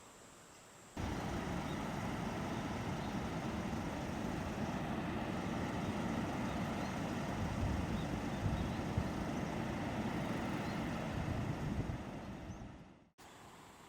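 A steady rumble of a vehicle on the move, cutting in abruptly about a second in and fading out near the end.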